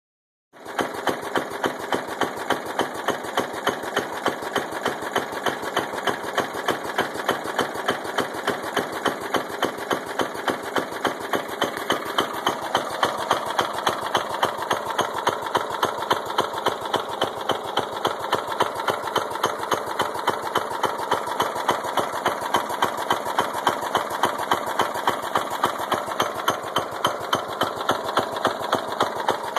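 Briggs & Stratton engine of a 1989 Murray riding lawn tractor starts running about half a second in and keeps running, with a sharp regular knock a few times a second. The uploader takes the knock for a bad connecting-rod knock in a blown engine.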